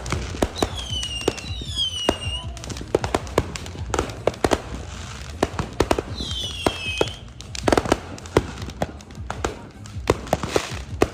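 Fireworks going off in a rapid series of sharp bangs and pops. Two whistling fireworks shriek with a slightly falling pitch, the first starting about half a second in and the second about six seconds in.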